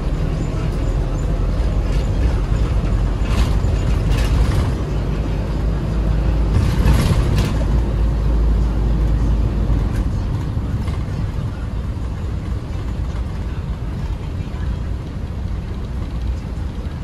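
A Toyota Coaster minibus running along the road: steady engine and road rumble. Two short hisses come about three to four seconds in and again about seven seconds in, and the engine noise eases after about ten seconds.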